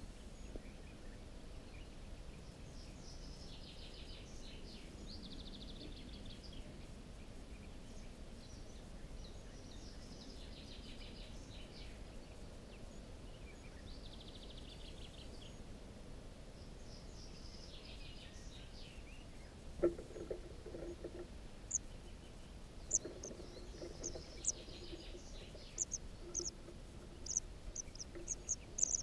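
Faint birdsong in the background, then about twenty seconds in a knock, followed by a run of short, very high cheeps: white wagtail nestlings begging in a tree-hollow nest.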